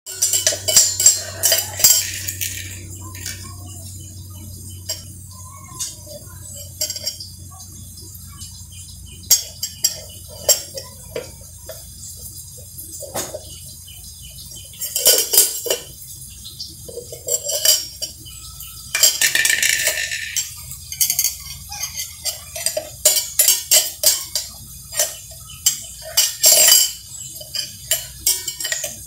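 A metal spoon clinking and scraping inside a stainless steel mixer-grinder jar, with its steel lid clattering on and off, in irregular clusters of sharp clinks.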